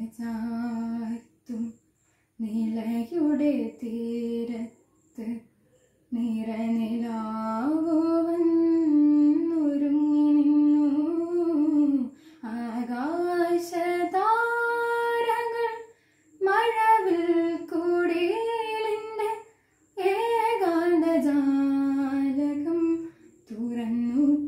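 A teenage girl singing a Malayalam light-music song solo and unaccompanied, holding long notes with slow pitch slides and ornaments, in phrases broken by short pauses for breath.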